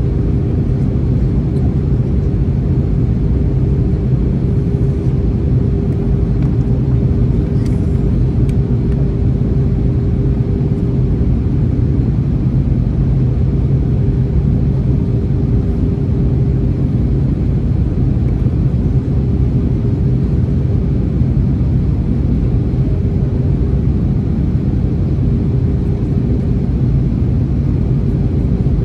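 Airbus A321neo cabin noise during descent on approach, heard from a window seat behind the wing: the steady low rumble of the turbofan engines and airflow, with a steady hum.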